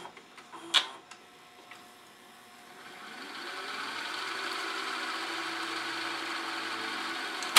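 Sony SLV-740HF VHS VCR rewinding a tape. The mechanism clicks twice into rewind, then the reels wind up to a steady whir over about a second, which ends with a sharp click near the end. The machine has a freshly cleaned and relubricated friction clutch.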